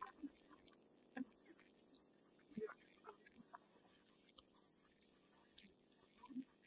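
Faint, steady high-pitched chorus of grassland insects, with scattered small clicks and rustles.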